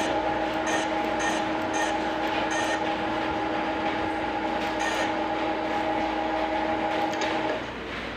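Lathe simulator's machining sound: a steady machine hum with several held tones over a hiss, with light ticks now and then. It cuts off sharply near the end as the machine stops.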